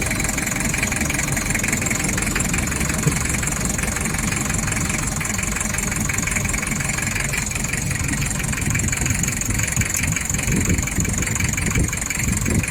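Mazda Bongo's diesel engine idling steadily.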